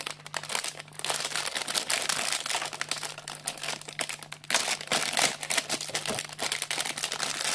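Thin clear plastic bag holding model-kit sprues crinkling and rustling in irregular bursts as it is handled and opened.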